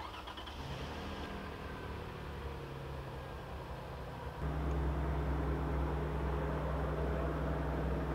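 Vehicle engine idling with a steady low hum, which gets louder about four and a half seconds in.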